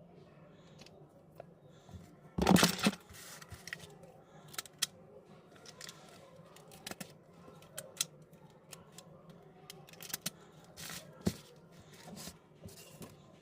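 Small clicks, taps and scrapes of tools and smartphone parts being handled during a screen replacement, with a louder, half-second scrape or rustle about two and a half seconds in.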